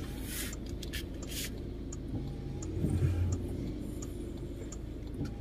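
Steady low rumble of a car's engine and tyres on a wet road, heard from inside the cabin. Two brief swishes come in the first second and a half as the windshield wiper sweeps the glass.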